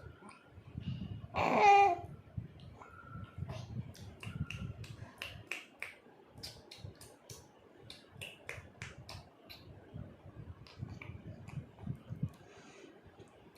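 Repeated sharp mouth clicks, like tongue clicking, of a young child imitating his mother's sounds, with one short, loud squeal about a second and a half in.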